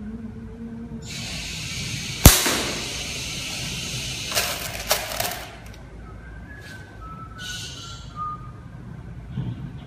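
A slingshot shot: one sharp, loud crack about two seconds in as the rubber bands are released and the marble hits the target. A few lighter clicks follow a couple of seconds later as marbles are handled for the next shot.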